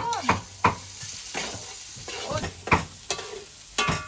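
Metal ladle stirring and scraping food in a wok over a fire, with sharp scrapes and knocks every half second to a second against a steady sizzle of frying.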